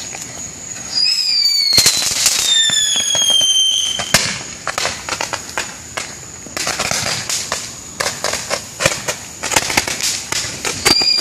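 Handheld Roman candle firing: whistling shots that fall in pitch, about a second in, again around three seconds and near the end, over a steady hiss, with a long run of sharp crackles and pops in the middle.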